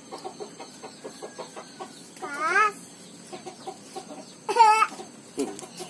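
Chickens clucking, a run of short soft clucks with two louder drawn-out calls, one about two seconds in and the loudest about four and a half seconds in.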